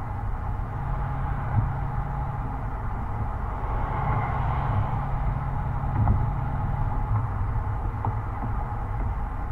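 2006 Mercedes-Benz SL500's 5.0-litre V8 heard through its exhaust, from a microphone outside near the tailpipe while cruising: a steady low drone mixed with road and wind noise. It swells a little around the middle, and two brief thumps come through, one early and one about six seconds in.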